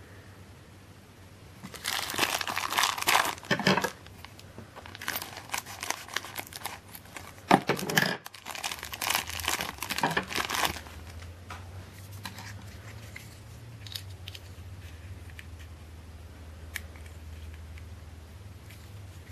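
Thin clear plastic bag crinkling and rustling in bursts as it is handled and torn open to free a figure's plastic display base. In the second half the crinkling stops, leaving only faint scattered clicks of small plastic parts being handled.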